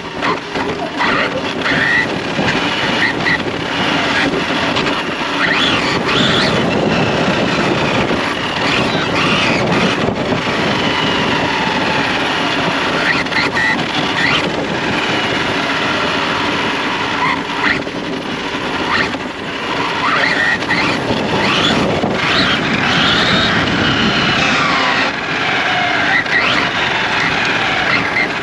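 Radio-controlled car driving: its electric motor whines up and down repeatedly as it speeds up and slows, with tyre squeals.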